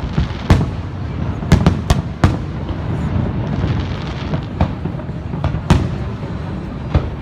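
Fireworks going off: about seven sharp bangs at uneven intervals, some close together, over a steady low background noise.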